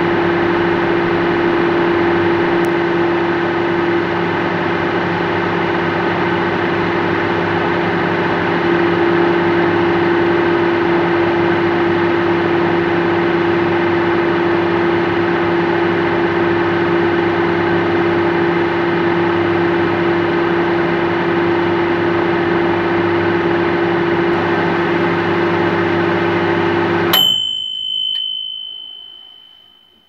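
Microwave oven running with a steady, loud hum from inside the oven cavity. Near the end it cuts off abruptly and a high beep sounds, the oven's end-of-cycle signal.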